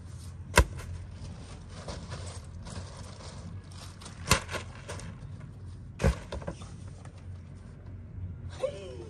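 Camping gear being handled and pushed out through a nylon tent doorway: rustling of fabric, a foam sleeping pad and plastic bags, with three sharp clacks about half a second, four seconds and six seconds in.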